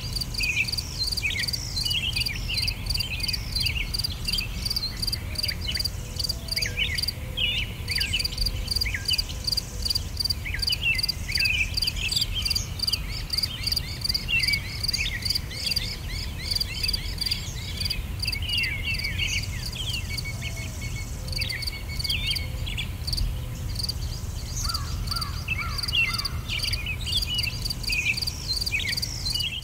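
Outdoor nature soundscape: many birds chirping and calling in short sweeping notes over a steady pulsing chorus of insects, with a low rumble underneath.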